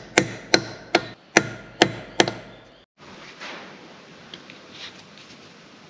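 Hammer striking metal at the end of a John Deere 6510's hydraulic steering cylinder during a seal rebuild. Six sharp blows, a bit over two a second, some with a brief metallic ring. They stop abruptly about three seconds in, leaving faint hiss and a few light clicks.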